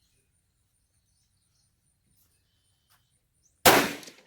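A single rifle shot about three and a half seconds in: one sharp report that dies away over about half a second.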